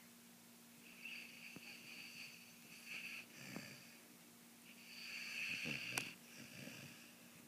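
Snoring in sleep: two long, hissy, wheezy breaths, the first about a second in and the second about five seconds in, each ending in a low rasp. There is a brief click near the end of the second breath, and a faint steady hum underneath.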